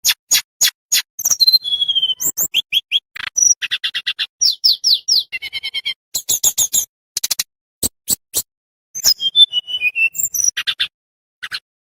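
Tledekan bambu songbird singing a fast, dense song of sharp chips, short falling whistles and rapid repeated trill notes, broken by brief pauses.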